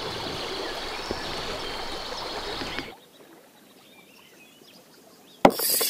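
Steady rush of river water. About three seconds in it cuts to a much quieter stretch with faint bird chirps. Near the end comes a sudden loud knock and a burst of noise.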